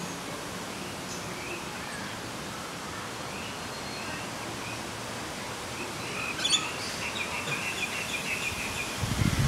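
Steady outdoor background hiss with faint, scattered bird chirps, and a short run of chirping from about six and a half to eight and a half seconds in. A low rumbling starts just before the end.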